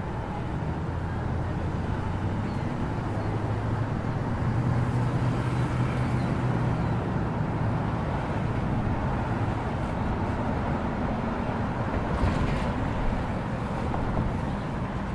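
Busy street traffic at an intersection: a steady rumble of car engines idling and passing, with a low engine hum that swells and fades through the middle. A brief louder rush of passing-vehicle noise comes about twelve seconds in.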